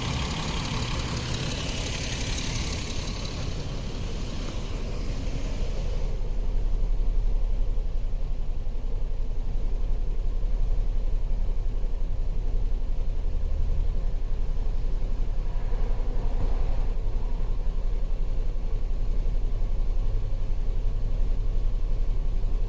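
A 2011 Jeep Wrangler's 3.8-litre V6 idling steadily; the engine has a misfire that new coil pack, injector and plugs have not cured. A hiss fades out over the first few seconds.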